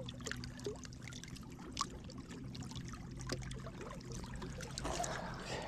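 Faint water trickling and lapping, with scattered small clicks and ticks.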